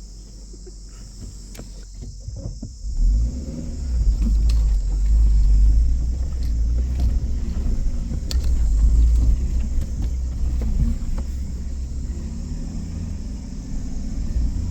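Suzuki Jimny climbing a steep, rocky off-road track: the engine and drivetrain set up a heavy low rumble from about three seconds in, with occasional knocks from the wheels going over stones.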